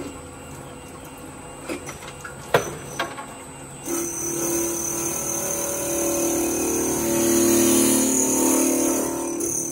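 A few light knocks as the crank handle of a vertical glass drilling machine is worked. About four seconds in, the machine's motor starts and runs with a steady hum.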